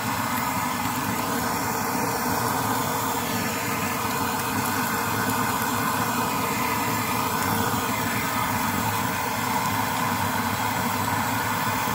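Steady rushing of a 1920s Primus pressure stove burner under a frying pan, with steak sizzling in the pan.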